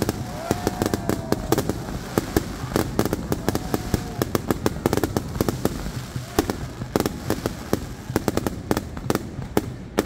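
Aerial fireworks bursting overhead: a rapid, irregular run of sharp bangs and crackles, several a second, without a pause.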